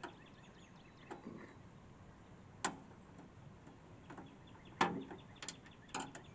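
Scattered sharp clicks and taps, a handful spaced irregularly, from working the screws out of a window air conditioner's front panel.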